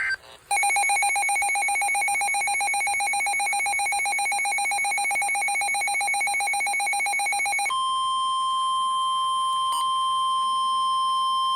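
Electronic weather-radio alert tones: a rapidly pulsing buzzer tone for about seven seconds, then a switch to one steady pure tone, the NOAA Weather Radio 1050 Hz warning alarm tone that signals a warning message is about to be read.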